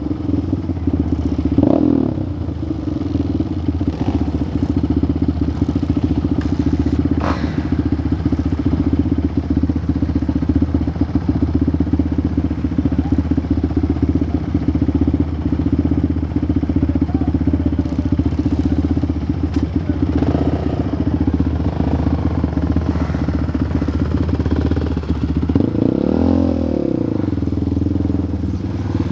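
Quad (ATV) engine running at low, steady revs while riding slowly, with short rises and falls in revs about two seconds in, around twenty seconds and more strongly near the end. A single sharp knock about seven seconds in.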